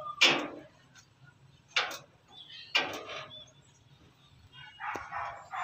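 A dog barking nearby: three short, sharp barks about a second apart, with a low murmur near the end.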